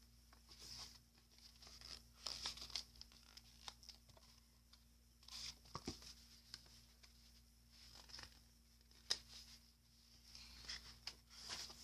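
Faint paper rustling and handling of a book's pages, with a couple of light clicks, as pages are turned.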